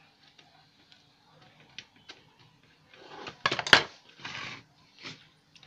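Handling of a set-top box's sheet-metal case and a screwdriver: a few light clicks, then a burst of metallic clattering and rattling about three and a half seconds in, followed by short scraping sounds.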